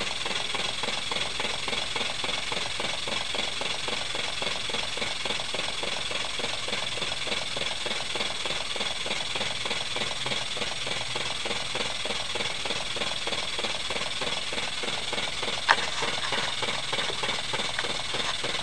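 Model six-cylinder radial engine running fast on compressed air, a steady high-pitched whine and hiss without any change in speed. A single sharp click about three quarters of the way through.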